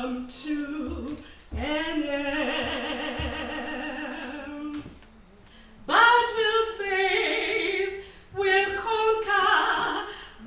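A woman singing solo and unaccompanied, with a wavering vibrato on long held notes. One note is held for about three seconds, there is a short pause about five seconds in, then the singing picks up again.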